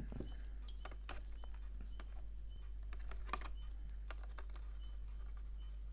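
Faint, scattered light clicks and taps as wire leads are handled around a glass incandescent test bulb, over a steady low hum.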